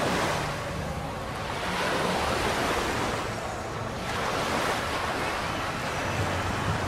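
Small surf breaking and washing up a sandy beach, the wash swelling and easing every couple of seconds, with some wind buffeting the microphone.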